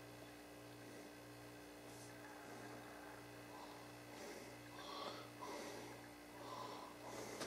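Quiet room tone: a steady low electrical hum that pulses a bit under twice a second, with soft puffs of noise, like breaths, near the microphone from about halfway in.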